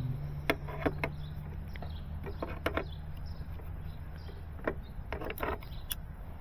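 Scattered small clicks and taps from hand work on a fiber drop cable, over a steady low hum.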